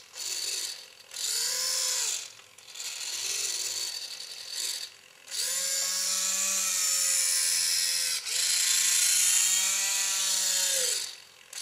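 Small servo motor and plastic gear train tilting a camcorder in a homemade camera sphere, whining in several short bursts, then in two longer runs of about three seconds each. The pitch rises as each run starts and drops as it stops.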